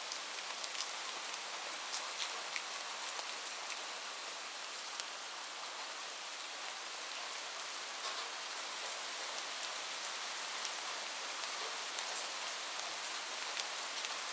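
Steady rain falling on a roof: an even hiss with many individual drops ticking sharply over it.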